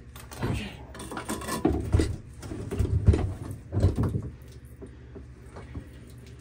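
Irregular clunks, knocks and scrapes of hand tools and metal parts being handled on a diesel engine's top end as a cylinder head is readied for removal. They are loudest in the first four seconds, then fade to light scattered taps.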